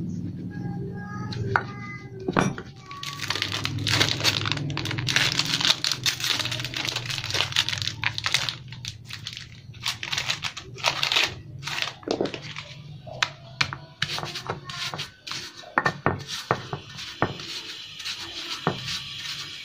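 Background music, with a plastic biscuit packet crinkling and rustling as it is handled and opened through the middle. Near the end, a stone pestle grinds and knocks wheat biscuits against a stone mortar.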